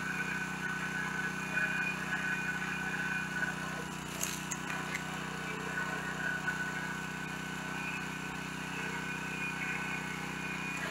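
Small gasoline engine of a 30-ton log splitter running steadily, with a higher whine that comes and goes as the splitter works the logs. A brief sharp noise about four seconds in.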